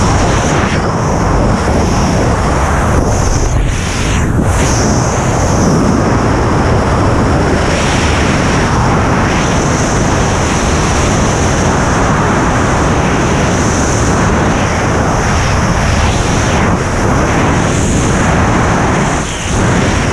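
Loud, steady rush of freefall wind buffeting a skydiver's camera microphone, briefly dipping near the end.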